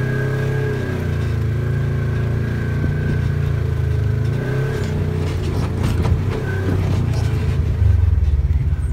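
Vehicle engine running with a thin, steady, high-pitched belt squeal on top; the squeal stops a little under five seconds in and returns briefly about a second and a half later, and the engine gets louder near the end. The squeal comes from the drive belt with a DuraClutch fitted.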